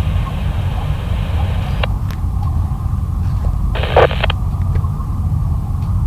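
Steady low rumbling drone. A hiss of noise is laid over it for the first two seconds, and a shorter, louder burst of noise comes about four seconds in.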